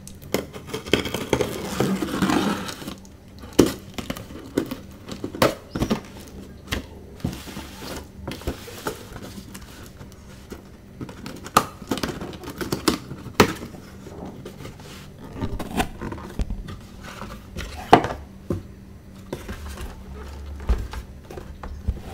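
Cardboard shipping box being opened by hand: a knife scraping along and cutting the packing tape, with tearing and a series of sharp knocks and thumps on the cardboard as the box and its flaps are handled.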